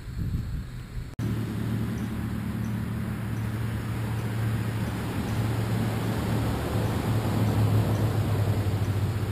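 A machine running with a steady low hum over a wash of noise, starting abruptly after a brief dropout about a second in.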